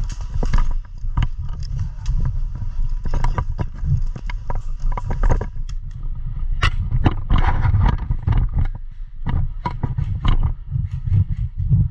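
Irregular footsteps, knocks and gear rattle with heavy low rumble, picked up by a body-worn GoPro action camera as its wearer moves about.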